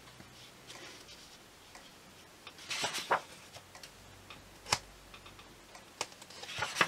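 Sheets of a craft paper pad being lifted and turned over by hand: a few short paper rustles and taps, with a sharp tap a little before the five-second mark and a brief sliding rustle near the end.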